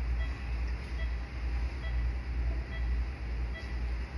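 Operating-room electronic monitor beeping about once a second, over a steady low rumble of room and equipment noise.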